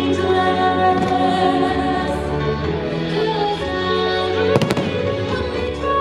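Fireworks display with its music soundtrack, held musical notes playing throughout. A firework bursts with a sharp double bang about four and a half seconds in, after a fainter pop about a second in.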